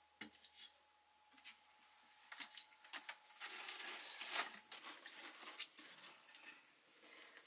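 A metal wok is set down on a clay wood-fired stove with a knock right at the start. Then firewood is shuffled and pushed into the firebox: scattered knocks, and a spell of scraping and crackling around the middle.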